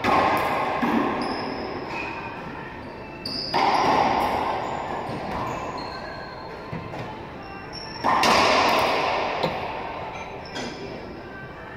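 Racquetball shots: the ball struck by racquets and smacking off the walls of an enclosed court, each loud hit followed by a long ringing echo. There are three loud hits, at the start, about three and a half seconds in and about eight seconds in, with lighter knocks and short high sneaker squeaks on the hardwood floor between them.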